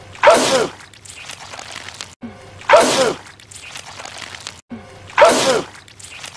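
A cartoon character sneezing again and again: three loud sneezes about two and a half seconds apart, each a sharp burst with a falling voiced tail. Quieter wet, dripping goo sounds fill the gaps between them.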